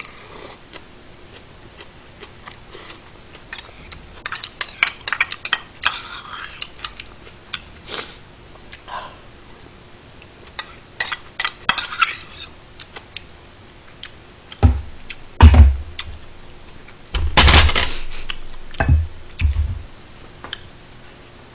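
Metal spoon clinking and scraping against a stainless steel rice bowl while eating, in scattered taps and short runs. Past the middle come several heavy thumps, the loudest sounds.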